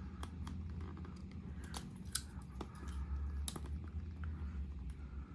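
A taped cardboard toy box being opened: a series of short, sharp snips and clicks, the clearest about two and three and a half seconds in, over a low steady hum.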